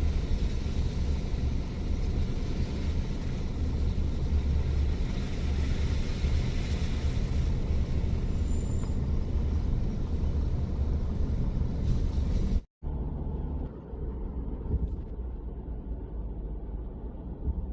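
A car driving, with a steady low rumble and a hiss of road noise. About two-thirds of the way through, the sound cuts off abruptly for an instant and comes back quieter, with much less hiss.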